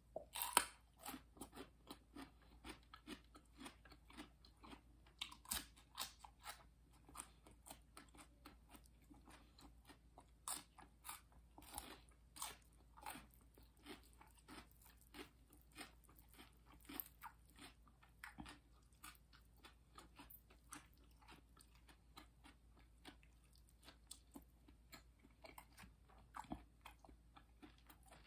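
Close-miked biting and chewing of raw radish and vegetables: a sharp crunch about half a second in as a whole radish is bitten, then irregular crisp crunches and chewing.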